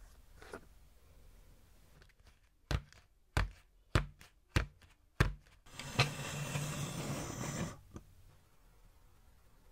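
Plastic kit tray of pancake batter knocked against a wooden table five times, about 0.6 s apart, to settle the batter. A steady hiss-like noise follows for about two seconds.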